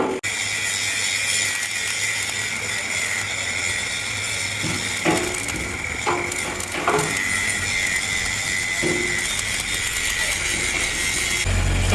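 Steady workshop machinery noise with a constant high whine, broken by a few short knocks about halfway through.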